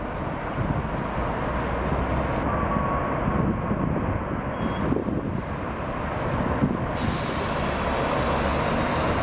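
Diesel bus engines running as buses idle and manoeuvre at the stands, a steady low rumble. A steady hiss joins suddenly about seven seconds in.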